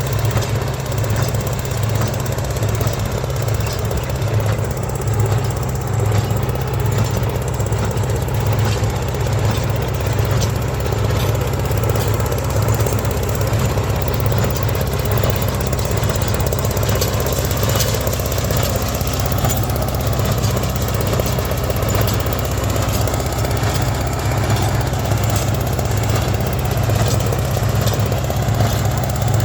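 John Deere 60 two-cylinder tractor engine pulling a Freeman wire-tie baler, together with the baler's Wisconsin engine: a steady, loud low engine beat with scattered light mechanical clicks from the working machinery.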